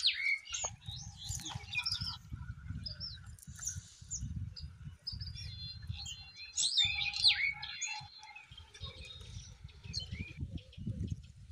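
Birds chirping and calling with many short whistled notes that sweep up and down, over an on-and-off low rumble.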